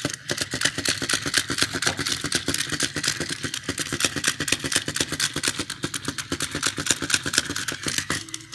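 Battery-powered Chubby Puppies Boston Terrier toy running: its small motor and spinning plastic legs make a rapid, even clicking rattle that stops suddenly about eight seconds in.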